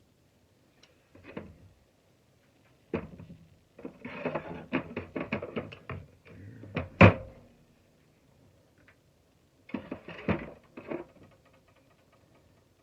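Metal parts of a dismantled shop vac motor being handled: irregular clicks and knocks, in two clusters with one sharp knock about seven seconds in, the loudest.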